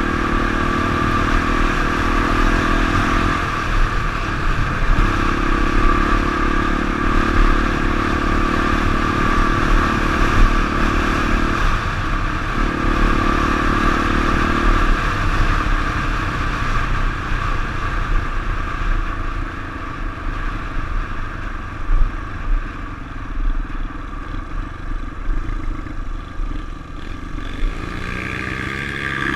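Honda XR350 dirt bike's single-cylinder four-stroke engine running under load on a dirt road, with two brief dips in the engine note about four and twelve seconds in. Partway through, the engine note falls away as the bike rolls off and slows, with steady wind and road rush throughout.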